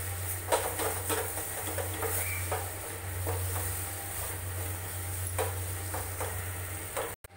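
Wooden spatula stirring and scraping mashed raw banana in a steel frying pan, with scattered knocks against the pan over a low steady hum.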